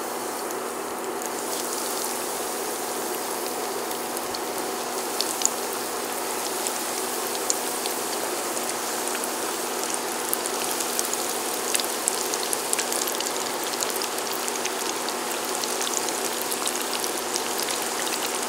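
Cornstarch-and-egg-white-coated chicken wings deep-frying in oil at about 325°F, the lower-temperature first stage of the fry: a steady, dense sizzle with many small crackles and pops scattered through it.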